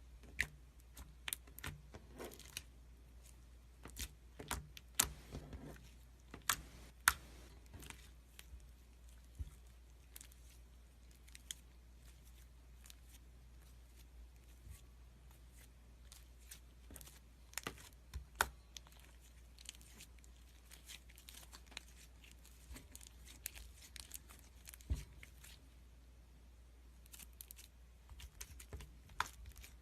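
Slime being squeezed and stretched by hand, giving faint, irregular clicks, pops and crackles.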